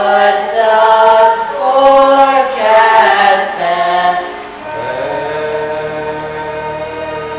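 Schoolchildren singing together in a stage musical number, on long held notes. About four and a half seconds in, the group's singing drops away, leaving a quieter single held note over a soft accompaniment.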